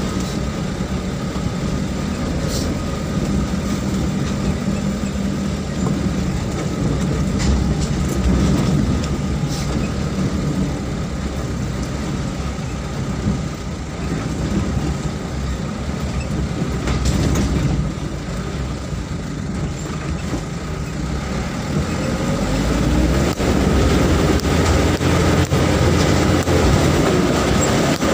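Vehicle engine running under load with the body rattling and knocking as it drives over a rough dirt track. The engine note climbs and grows louder over the last few seconds.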